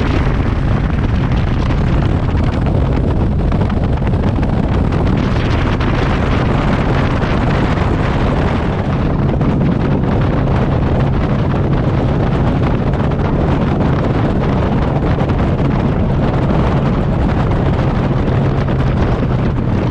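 Bass boat running fast under power: a steady engine hum under heavy wind buffeting on the microphone and water rushing past the hull.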